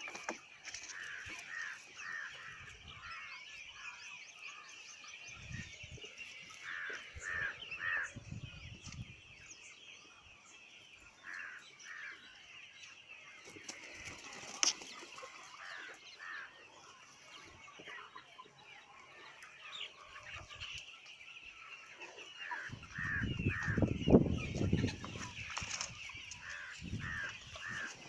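A flock of free-range chickens clucking, hens calling in short notes repeated in twos and threes over a steady high hiss. About three-quarters of the way through comes a louder low rumble lasting a couple of seconds.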